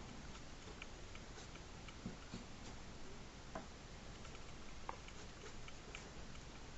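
Ink pen working on paper: faint, irregular small ticks and scratches as lines are drawn, with a few slightly louder taps about two, three and a half and five seconds in.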